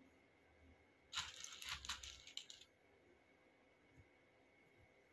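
Tarot cards being shuffled and handled on the table: a burst of quick papery rustling and clicks, about a second and a half long, starting about a second in.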